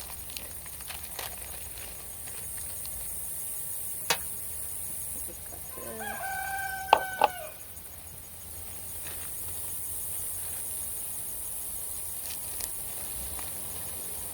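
A rooster crowing once, a call of about two seconds in the middle. A few sharp clicks come around it, the loudest two near the end of the crow.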